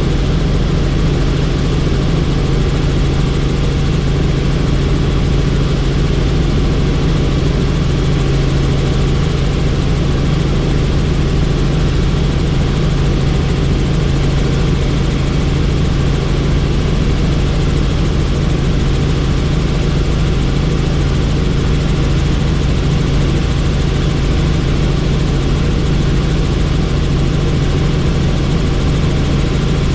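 Helicopter rotor and engine running steadily: a constant loud drone with a strong low hum.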